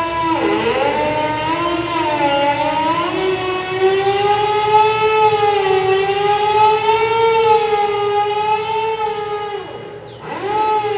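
Siren-style danger alarm sounding continuously: a loud tone rich in overtones whose pitch wavers slowly up and down. It dips sharply about half a second in, and near the end it falls steeply and climbs straight back up.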